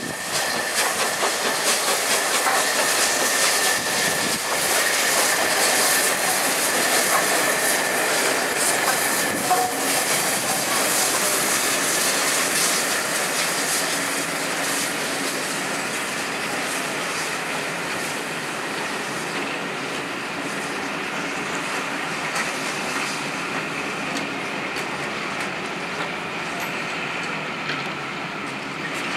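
Steam-hauled passenger train passing: the Peppercorn A1 Pacific 60163 Tornado and its coaches, wheels clacking over the rail joints. A steady high squeal runs through the first ten seconds or so. The sound is loudest in the first twelve seconds and eases a little as the coaches roll by.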